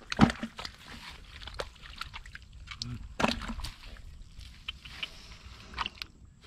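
Wet mud and shallow water squelching and sloshing in irregular splashes and knocks as hands work through the mud, the loudest right at the start and another about three seconds in.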